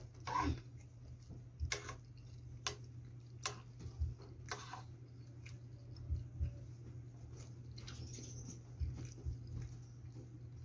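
Close-up chewing and mouth sounds of a person eating fried chicken and mashed potato, with scattered short sharp clicks and smacks, over a steady low hum.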